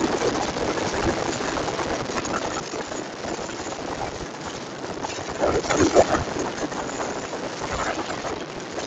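Wind rushing over the microphone with the Honda CG 150 Fan motorcycle's single-cylinder engine running at high speed, about 140 km/h, with a few louder gusts a little past the middle.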